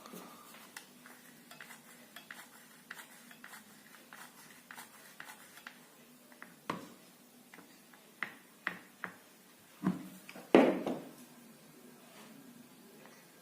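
Small hard objects being handled: a run of light clicks and taps, then several sharper knocks, the loudest about ten and a half seconds in.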